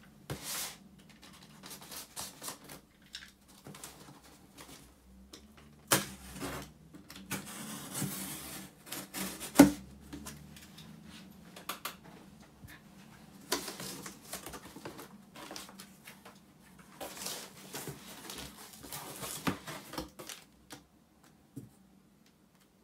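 A cardboard shipping box being cut open: a utility knife scraping through packing tape, then cardboard flaps scraping and knocking as they are handled. The knocks are irregular, with one sharp knock about ten seconds in, and plastic wrapping rustles near the end.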